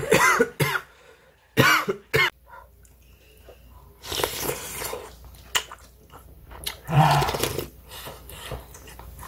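A person with a bad cold coughing in several harsh fits, a few short coughs each, spread over several seconds: a cough from the cold.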